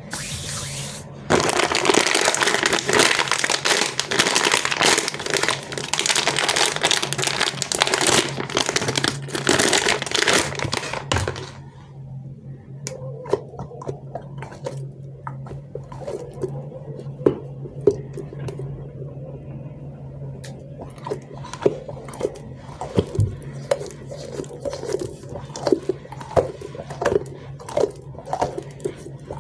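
Plastic wrapper crinkling and tearing loudly for about ten seconds. After that, a soft squishy anti-stress toy is squeezed by hand, with quieter scattered squelches and clicks.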